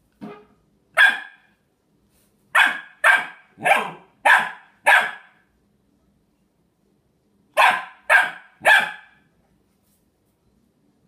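Three-month-old Australian Shepherd puppy barking in short, separate barks: two single barks, a quick run of five, a pause of a couple of seconds, then three more near the end.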